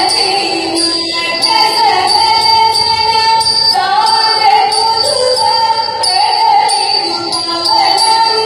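Thiruvathirakali song: a woman sings a flowing melody in phrases of about a second over light jingling percussion.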